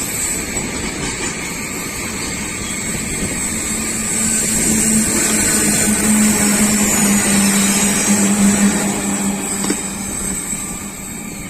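Electric-hauled passenger train running past, with a steady rumble and rattle of wheels on rails. It grows louder about four seconds in, where a steady low hum joins it, and eases off near the end.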